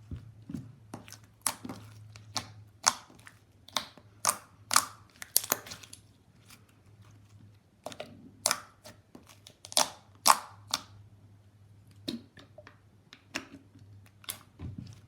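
Thick slime being squeezed and poked by hand, giving irregular sharp clicks and pops. A faint steady low hum runs underneath.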